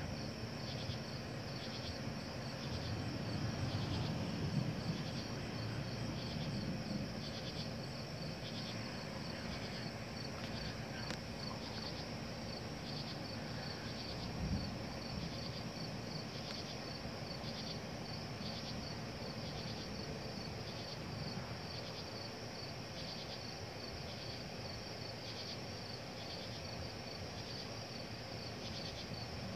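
A chorus of night insects chirping in steady, evenly repeating pulses, with a low rumble swelling a few seconds in.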